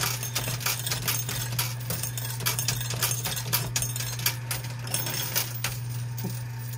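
Quarters clinking and dropping in a coin pusher machine: a fast, irregular run of small metallic clicks over a steady low machine hum.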